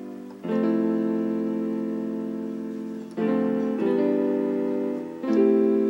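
Background music: keyboard chords, three struck in turn and each left ringing and slowly fading.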